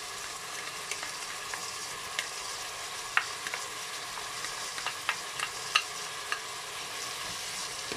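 Onion, carrot and pickled cucumber sizzling steadily as they fry in a multicooker bowl on its frying mode, with scattered light clicks and taps of a plastic spatula scraping tomato paste in.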